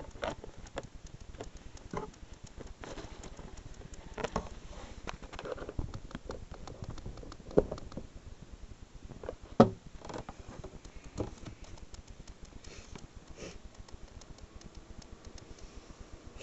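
Handling noise: irregular small clicks and taps, with two sharper knocks about halfway through, over a faint steady hiss.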